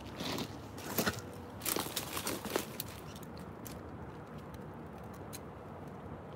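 Footsteps: a quick run of steps in the first two and a half seconds, then only a few faint clicks.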